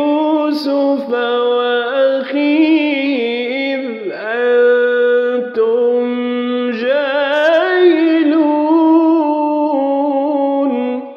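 A man chanting Quran recitation in the melodic tajweed style, drawing one phrase out in a long ornamented run with wavering turns of pitch and a few brief breaks. Near the end the voice stops and fades away with an echo.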